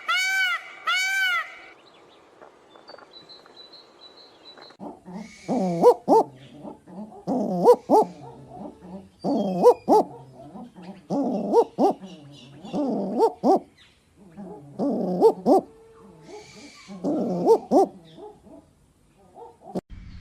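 An owl hooting in a series of low phrases, about one every two seconds, starting about five seconds in. At the very start the repeated arched notes of a different bird's call end.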